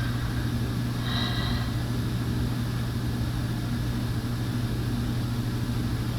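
A steady low hum, like a motor or appliance running, with a faint brief high tone about a second in.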